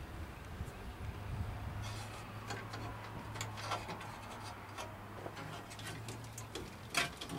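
Scattered light clicks and rattles of wires and plastic connectors being handled as a truck's under-dash wiring harness is worked loose, over a steady low hum that fades out near the end.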